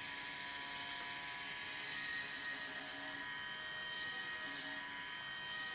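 Electric gyroscope motor of a vintage aircraft turn and slip indicator spinning at speed: a steady high whine made of several tones at once, the highest of them wavering slightly in pitch late on.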